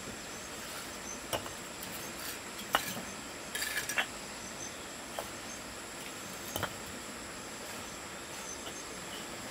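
Steady high-pitched insect chirring, with a few scattered light clicks and knocks, the sharpest about three seconds in.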